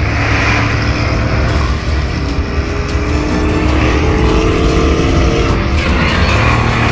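Loud V8 muscle-car exhaust running and revving, with the pitch gliding up and down in the middle.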